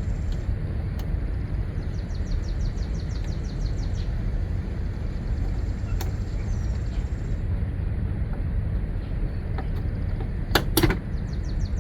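Hand ratchet clicking in quick runs as fasteners on the door's window regulator are worked loose, over a steady low rumble, with two sharp metallic knocks near the end.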